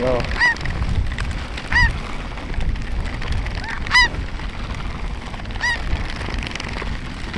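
Snow geese calling: short, high-pitched honks every second or two, a few lower-pitched ones among them, over a steady low rumble.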